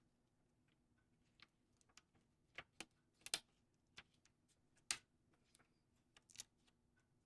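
Faint, irregular clicks and taps, about ten of them spread over several seconds, the loudest a little after three seconds and near five seconds: small handling sounds of hand work at a bookbinding bench.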